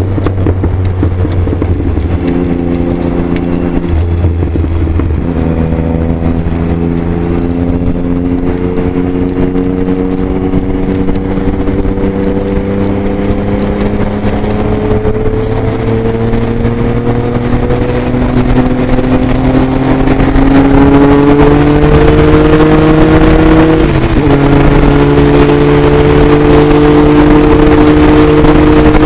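Motorcycle engine running hard at highway speed under a constant rush of wind noise. Its pitch steps a few times early on, then rises slowly as the bike accelerates, and it grows louder. About 24 s in the pitch drops sharply at an upshift, and the engine then pulls steadily.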